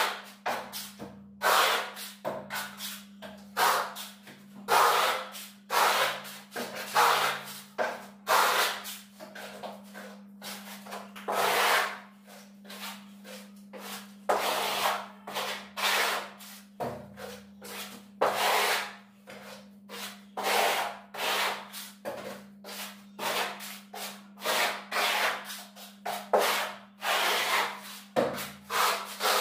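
Steel plastering trowel scraping bark-beetle decorative plaster across a wall in repeated, irregular strokes, about one or two a second. A low steady hum runs underneath.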